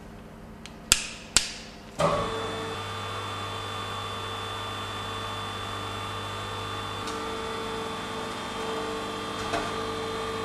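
Two sharp clicks, then the electric hydraulic pump of a Car-O-Liner Quick 42 repair bench starts about two seconds in and runs with a steady hum. Its tone changes about two-thirds of the way through, when the lowest part of the hum drops out.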